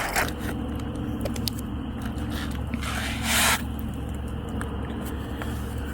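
A steady low hum with faint steady tones, a few light clicks, and a short hiss about three seconds in.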